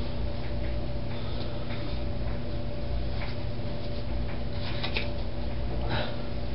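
Room tone: a steady low hum with a few faint clicks and rustles scattered through it.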